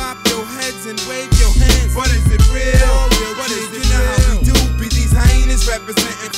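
Hip hop music: rapping over a beat with a heavy bass that drops out for about a second at the start and again near the end.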